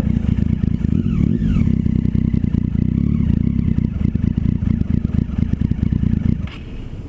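Motorcycle engine running, then cutting out about six seconds in: it stalls because its idle has dropped too low.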